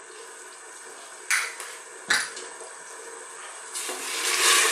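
Spices being stirred into broth in a stainless steel pressure cooker pot with a black plastic slotted spoon: a liquid swishing and splashing that swells near the end. Before it, two short light knocks about one and two seconds in.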